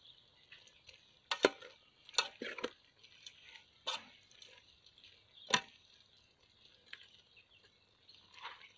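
Metal ladle knocking and clinking against the side of an aluminium cooking pot while stirring a stew: a handful of separate sharp knocks, the loudest about a second and a half in and about five and a half seconds in.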